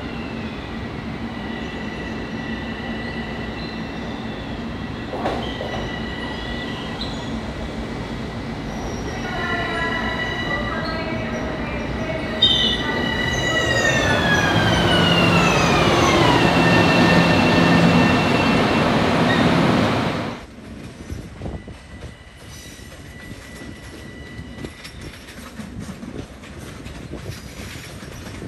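Long Island Rail Road Bombardier M7 electric train pulling into a station platform and braking: high whining tones over rail and wheel rumble, one tone gliding down in pitch as the train slows while the noise swells. The sound cuts off suddenly about twenty seconds in, giving way to quieter outdoor background noise.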